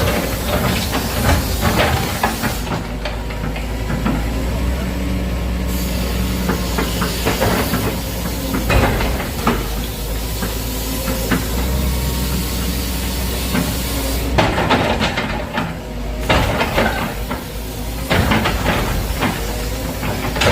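Excavator demolishing a house: the diesel engine runs steadily under load while concrete and debris crash and crunch many times over.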